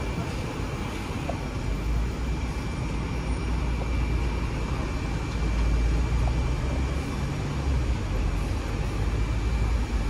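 Hong Kong double-decker electric tram running along the street rails, heard from on board: a steady low rumble with a steady high whine above it, and street traffic around.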